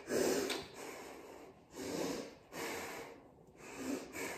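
A woman's heavy breathing: several loud breaths, blown out through pursed lips, about one a second.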